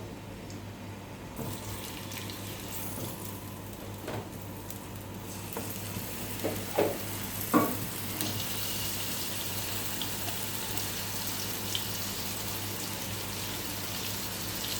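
Marinated chicken leg pieces sizzling in hot oil in a kadai on a gas stove. The sizzle builds over the first several seconds and then holds steady, with a few short knocks around the middle.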